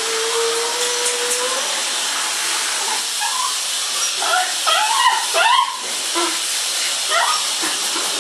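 A dog crying at bath time: a long steady whine that stops about a second and a half in, then a run of high, wavering cries in the middle and again near the end. Under it runs the steady hiss of running shower water.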